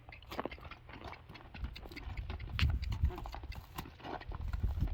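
A horse's hooves stepping and thudding on a trailer floor, with scattered sharp knocks; the low thuds grow heavier from about a second and a half in.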